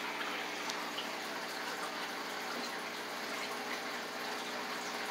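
Steady running water with a faint low hum underneath.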